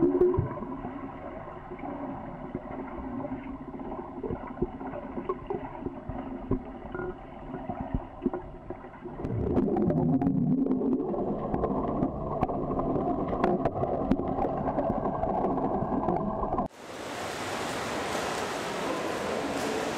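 Pool water heard underwater: a swimmer's backstroke arm strokes sloshing and bubbling, muffled, over a steady hum, with louder churning about halfway. About three-quarters through it cuts to the sound from above the surface, a steady hiss of splashing water.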